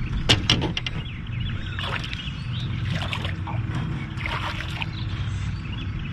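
Water splashing and sloshing close beside an aluminum boat's hull as a hooked fish is brought to the side, with a couple of sharp knocks near the start, over a steady low rumble.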